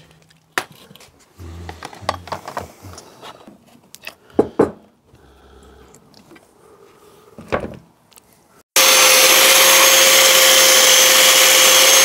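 A few knocks and clicks as a steel road wheel is offered up and fitted onto the hub. About three-quarters of the way through, a handheld angle grinder cuts in suddenly and runs loud and steady with a constant whine.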